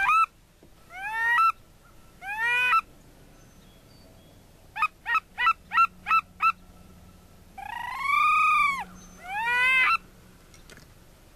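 Goose honking. There are three rising honks, then about halfway a quick run of six short clucks, then a long drawn-out honk and one more rising honk near the end.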